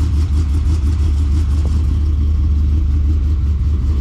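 A motor-vehicle engine running steadily, a deep low drone with no revving.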